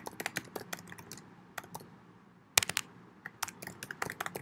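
Typing on a computer keyboard: irregular key clicks, with a short pause about two seconds in, then a quick run of louder keystrokes.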